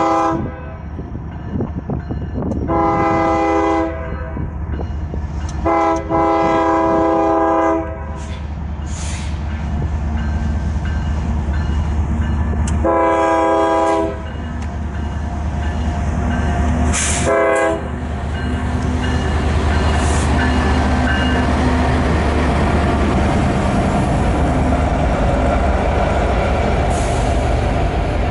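KCS diesel freight locomotive sounding its multi-chime air horn in a series of blasts: one ending just as the sound begins, a short one about three seconds in, a long two-second blast around six seconds, another about thirteen seconds in and a quick short toot near seventeen seconds, all over the steady low rumble of the diesel engine. After that the empty tank cars and gondolas roll past, their wheels rumbling and clattering on the rails, growing louder toward the end.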